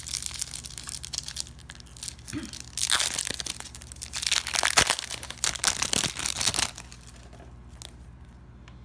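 Foil-lined plastic wrapper of a Garbage Pail Kids trading-card pack being torn open and crinkled as the cards are pulled out. It is loudest in the middle and stops a couple of seconds before the end.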